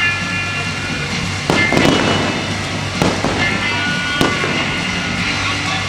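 Fireworks show in progress: aerial shells bursting with several sharp bangs, the loudest about a second and a half in, over continuous crackling.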